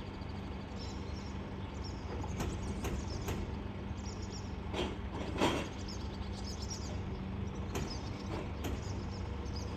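Small rear-loading glass-recycling truck idling with a steady hum while wheelie bins are rolled up and hooked onto its lift, with a few sharp knocks, the loudest about five seconds in.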